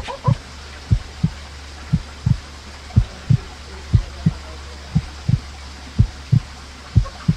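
Heartbeat sound effect: a low double thump, lub-dub, repeating about once a second over a low steady hum.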